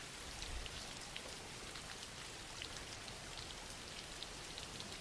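Soft, steady rain with scattered faint drop ticks, a gentle rain ambience.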